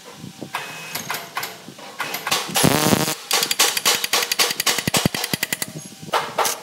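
Cordless impact wrench hammering bolts home on a loader wheel hub, in bursts of rapid strikes with short pauses between, the first starting about two seconds in and another near the end.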